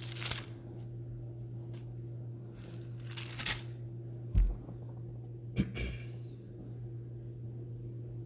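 Thin Bible pages rustling and crinkling in a few short bursts as the book is handled, then a dull thump about four and a half seconds in and two quick clicks just after, over a steady low hum.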